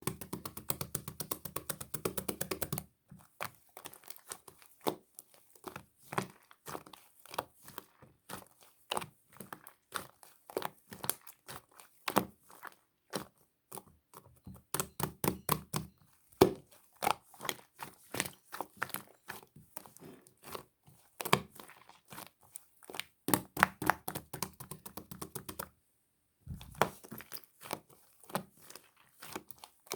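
Blue slime being squished, poked and stretched by hand, giving rapid irregular clicks, pops and crackles, with a few short pauses.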